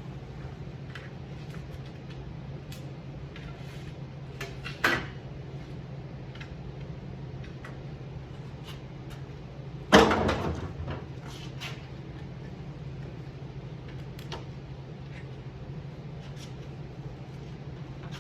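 Hand tools and loose trim parts clicking and tapping during car trim removal, with a sharp clunk about five seconds in and a louder metallic knock about ten seconds in that rings briefly.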